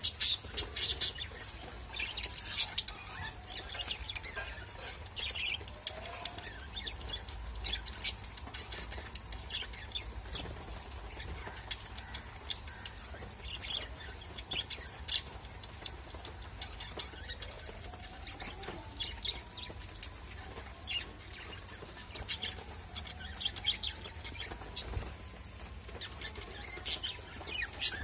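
Budgerigars chirping and chattering: many short, high chirps, scattered and overlapping throughout.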